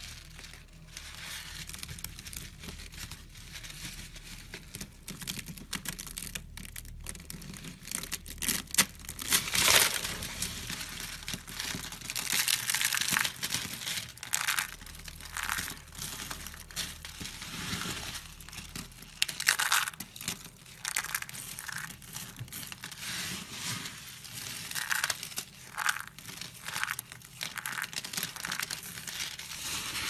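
Hands crushing and rummaging through dry carved soap chips and flakes: a continuous crackling, crunching rustle with several louder crunches.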